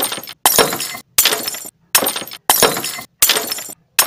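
A person chewing a mouthful of noodles close to the microphone: loud crunching in short regular bursts, about one every three quarters of a second, with silence between them.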